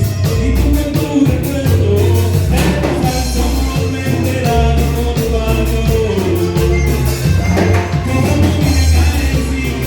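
Music with singing: a band playing Latin-style music with bass, drums and a lead voice, at a steady beat.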